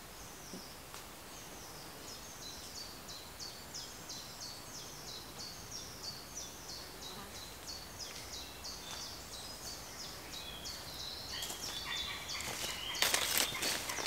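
A small bird singing a long run of short, high repeated notes, about two to three a second. Near the end, louder crunching footsteps on a stony path.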